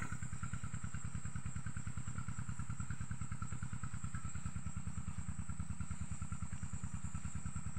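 A small engine running steadily, with a fast, even pulsing beat and no change in speed.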